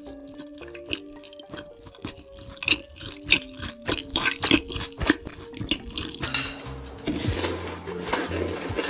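Close-miked eating sounds over light background music: chewing and small clicks of a spoon and dishes, then from about seven seconds in, a noisy slurping of noodles.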